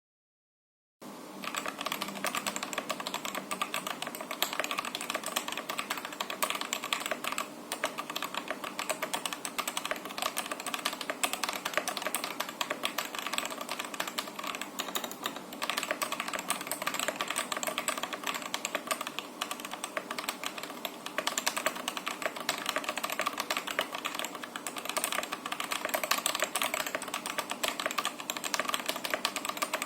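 Continuous fast typing on a mechanical keyboard with stock Gazzew Boba U4T 62g tactile switches, stock keycaps and a lubed spacebar, its case filled with foam dampener and its feet removed; the dense key clicks start about a second in after digital silence.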